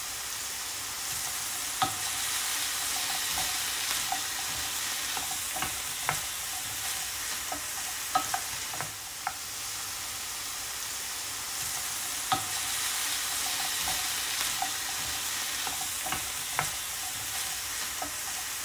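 Onion and frozen bell pepper pieces sizzling in oil in a stainless steel frying pan: a steady hiss with scattered sharp pops and crackles, stirred with a wooden spatula near the end.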